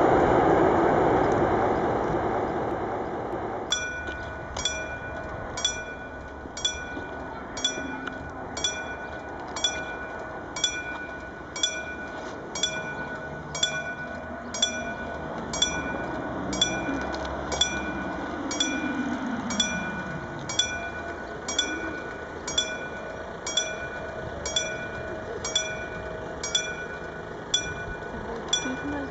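Level-crossing warning bell starts about four seconds in and rings with even strokes about once a second, the crossing's signal that a train is approaching. Before it, a rushing noise fades away.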